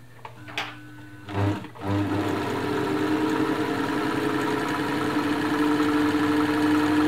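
Elna Lotus SP sewing machine starting up about two seconds in, after a few soft knocks, and then running at a steady speed with a steady whine. It is test-sewing the first long zigzag bar of a buttonhole.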